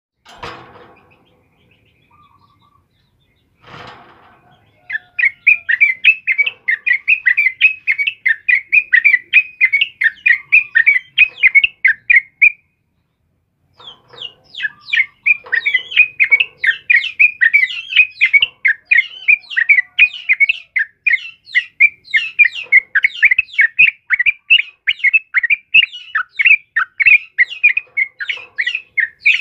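Caged yellow-vented bulbul (trucukan) singing a dense, rapid run of short chattering notes. The song starts about five seconds in, breaks off for a second around the middle and starts again. Two brief rustles come just before the song starts.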